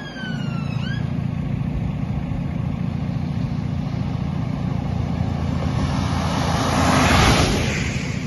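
Telehandler diesel engine idling with a steady low rumble, while a distant siren falls away and stops about a second in. Near the end, tyres hiss past on the wet road, swelling to the loudest point about seven seconds in and fading.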